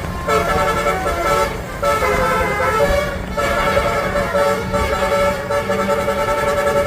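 Basuri telolet bus horn playing a tune: several horn tones sounding together and stepping from note to note in melodic phrases, with short breaks about a second and a half in and about three seconds in.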